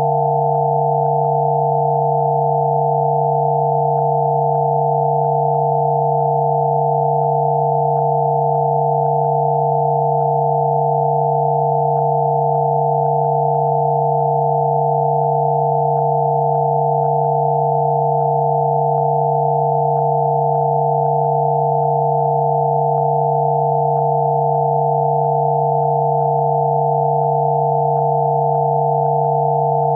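Generated Rife-frequency pure tones sounding together: one low tone and a cluster of higher tones, held perfectly steady without any change.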